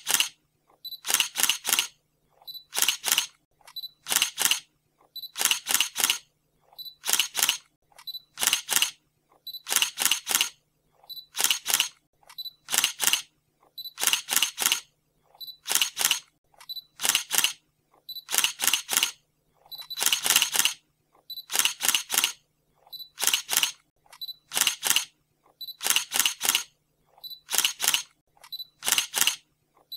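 Camera shutter clicking over and over, each shot a quick double click, repeating evenly about every second and a half.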